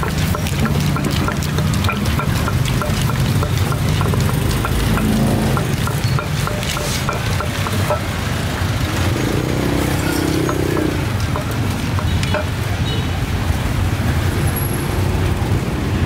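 A steady low engine rumble, with faint regular ticking at about four a second through the first seven seconds or so and a brief pitched hum around ten seconds in.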